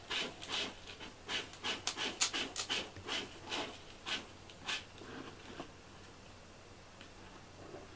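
A cat's quick, airy breaths, about three a second, thinning out and stopping about five seconds in.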